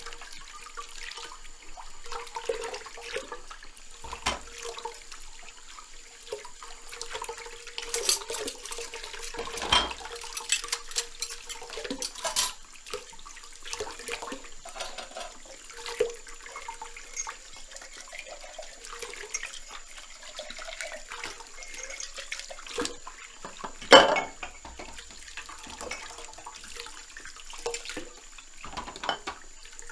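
Dishes being washed by hand in a sink: water splashing and running, with scattered clinks and knocks of dishes against each other, the loudest knock about two-thirds of the way through.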